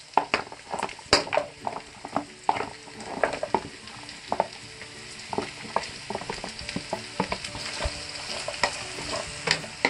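Boiled pork spare ribs sizzling as they are dropped into a hot wok of sautéed garlic, onion and tomato and stirred with a wooden spatula. Repeated knocks come as the pieces land and are pushed around the pan.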